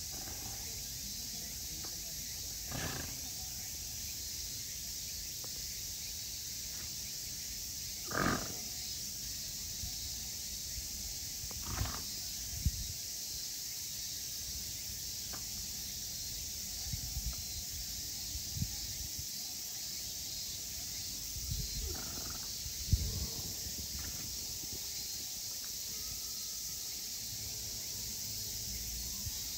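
Grant's zebra blowing short 'brrr' snorts, several times with long gaps between them, the strongest about eight seconds in, over a steady background hiss.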